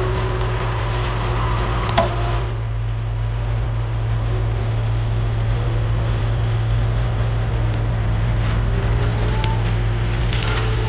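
Heavy machinery engine running steadily with a constant low hum, and a sharp knock about two seconds in.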